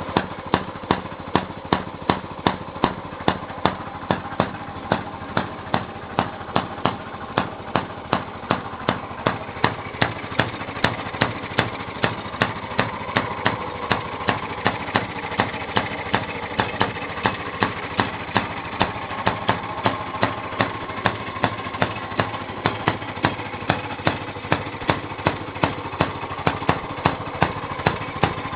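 Maytag Model 43 washing machine running on its small built-in gas engine, just after an easy start. A steady engine drone is marked by sharp, regular beats about three times a second.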